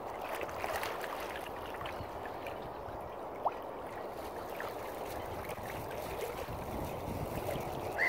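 Steady lapping and gurgling of water around swimming swans and ducks, with one brief sharp chirp about three and a half seconds in.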